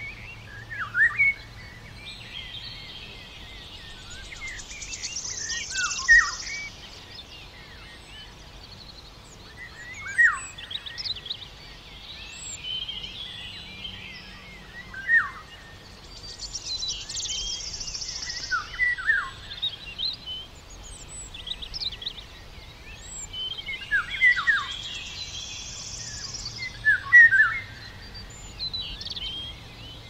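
Small songbirds calling in woodland: many short, sharp down-slurred chirps, with a higher buzzy trill phrase about every ten seconds, over a faint steady background hiss.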